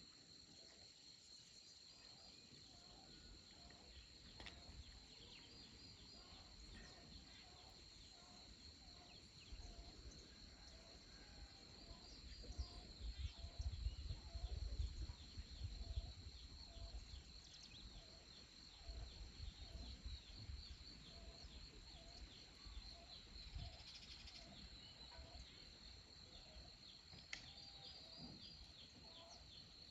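Faint outdoor chorus of insects, crickets giving a steady high trill, with a short low call repeating about once a second. A low rumble on the microphone comes in the middle.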